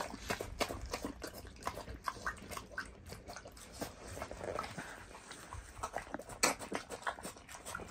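A pig eating with its snout down in a metal pan of feed and greens: wet, irregular chewing and smacking with frequent short clicks, one louder click about six and a half seconds in.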